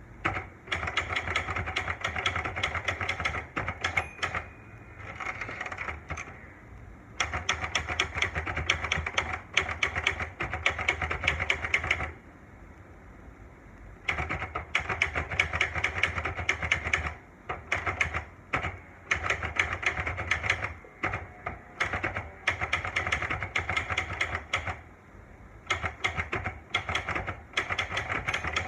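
Olivetti Lettera 92 manual portable typewriter being typed on: quick runs of keystrokes clacking, several a second, in bursts of a few seconds with short pauses between.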